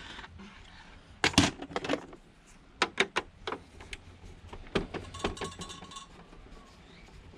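Scattered metallic clicks and clinks of a hand screwdriver working screws out of a plastic sewing machine casing, in small clusters with short gaps between.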